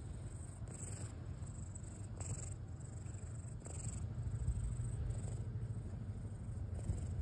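Domestic cat purring with a steady low rumble while being stroked under the chin. A faint high hiss swells briefly every second or so.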